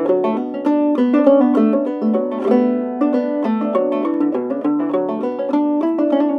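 Old-time clawhammer banjo music: a brisk tune of quickly plucked notes in a steady, unbroken rhythm.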